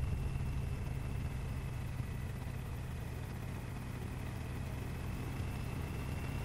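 Triumph Tiger 1050's three-cylinder engine running steadily, a low drone under a wash of road and wind hiss, heard through a helmet intercom microphone. A thin, steady high whine sits above it.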